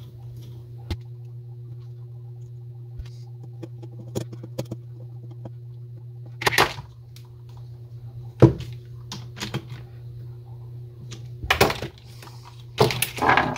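Handling noise from a spincast fishing reel being reassembled by hand: scattered light clicks and taps of its metal and plastic parts, with a few louder clacks in the second half, over a steady low hum.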